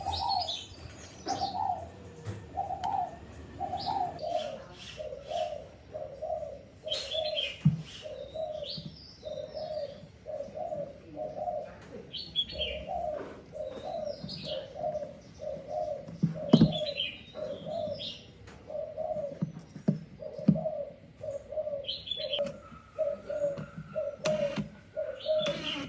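Birds calling: a steady string of short, low cooing notes, about one and a half a second, with higher chirps from other birds every few seconds.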